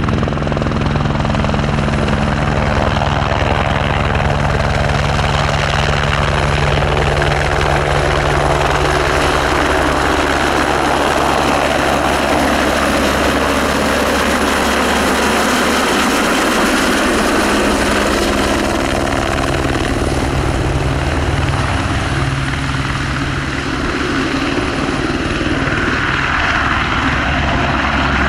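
Airbus H125 helicopter hovering low and moving past, its single turboshaft engine whining steadily high over the beat of the main rotor.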